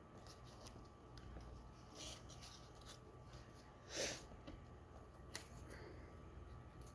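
Faint handling noises of the paper-and-clothespin craft being set down: light rustles and small clicks, with one short, louder rustle about four seconds in and a sharp click a second later.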